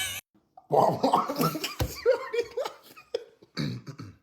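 A person making a silly, made-up vocal noise to go with a funny face: a run of loud, wavering voice sounds lasting about two and a half seconds, then one short burst near the end.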